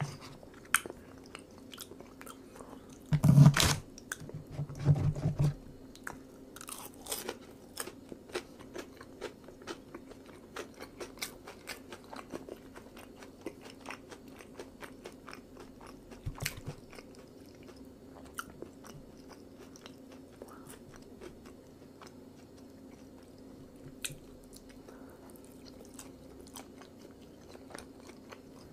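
A person chewing food close to the microphone, with soft wet clicks and light crunches. There are a few louder thumps about three and five seconds in, over a faint steady hum.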